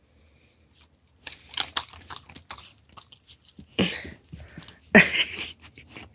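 A dog chewing and mouthing, with many quick small clicks, then two louder scuffling bursts about four and five seconds in as a basket muzzle is handled at its nose.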